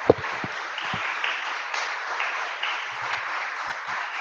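Audience applauding steadily, with a single thump just at the start.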